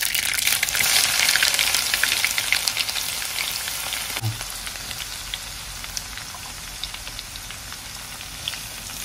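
Hot oil sizzling and crackling in an aluminium kadai. It is loudest in the first couple of seconds and slowly dies down.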